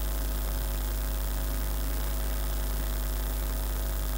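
Steady electrical mains hum.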